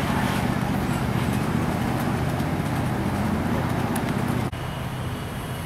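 Steady low engine hum over road traffic noise. It drops suddenly to a quieter hum about four and a half seconds in.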